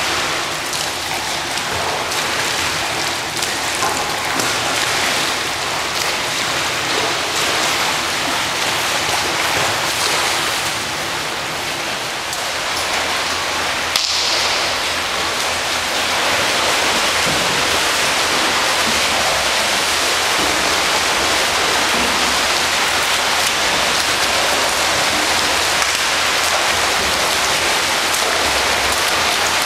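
Steady echoing din of an indoor swimming pool, an even rush of noise like splashing water. A sharp click comes about fourteen seconds in, and after it the noise is a little louder.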